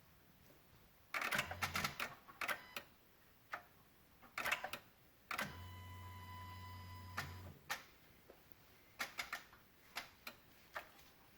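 Irregular clicking, like a relay, from near the PCM and VSA control module of a 2016 Honda Odyssey with the engine off, coming in small clusters of clicks. Twice a low hum comes on with a click and stops again, the second time for about two seconds. The clicking is a fault symptom that goes with the engine, VSA, LDW and FCW warning lights being on.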